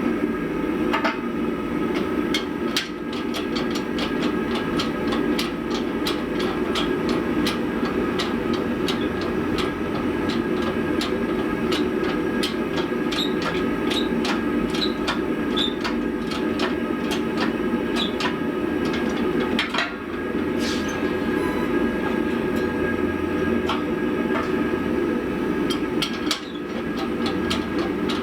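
Billet-pressing work on a hot damascus billet: a steady machine drone with many sharp clicks and knocks throughout, and a few louder knocks about 20 and 26 seconds in.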